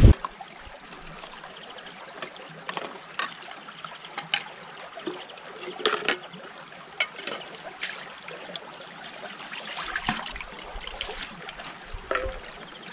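Water trickling steadily, with scattered light clicks and clinks of camping cookware being handled.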